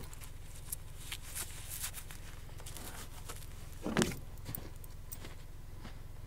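Footsteps crunching through snow, irregular and coming closer, with one louder crunch about four seconds in, over a steady low hum.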